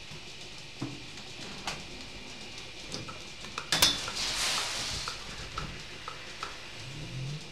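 Milking parlour equipment: scattered metallic clinks and clicks over a steady machine hum, with a loud clank just before four seconds in followed by about a second of hissing.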